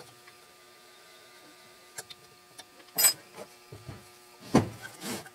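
Small clicks and knocks of a drill bit grinder and its 3D-printed plastic swarf collector being handled on a workbench, over a faint steady hum. A sharper knock comes about three seconds in, and a scuffing clatter near the end.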